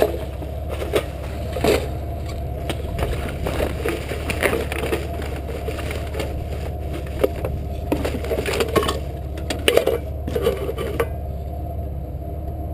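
Plastic garbage bags rustling and crinkling as they are pulled open and rummaged through in a steel dumpster, with irregular sharp knocks of the things inside being handled; the handling stops about eleven seconds in.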